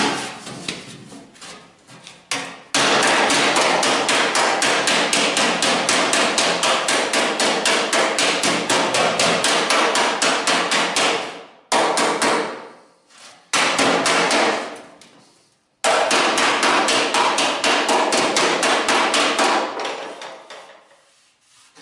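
Homemade slapper, forged from a leaf spring, striking a thin steel sheet in fast, even blows of about six a second. The blows come in four runs with short breaks, and the last run tails off near the end.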